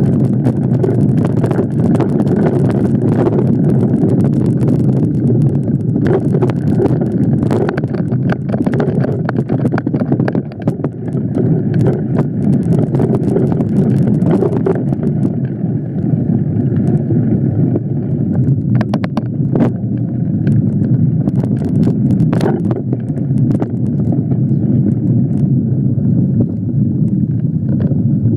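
Wind buffeting the microphone of a camera riding on a moving mountain bike, a steady low rumble, with scattered clicks and rattles as the bike runs over a rough dirt trail. The clicks come thickest in the first half and thin out later.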